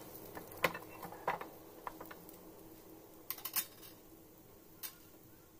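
Metal spatula tapping and scraping against a non-stick frying pan while a bread-and-egg omelette is folded over, a few light separate clicks spread out over a faint steady hum.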